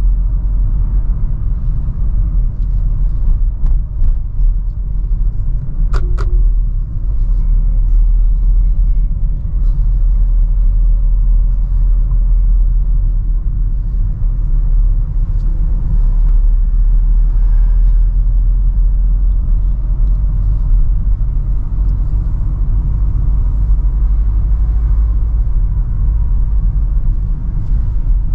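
Steady low rumble of a Renault Sandero Stepway driving slowly in town, heard from inside the cabin: engine and tyre noise. There is a single sharp click about six seconds in.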